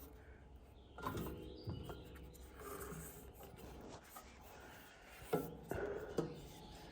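Hand work on sawmill parts: a few sharp knocks, about a second in and again past five seconds, with rubbing and scraping between.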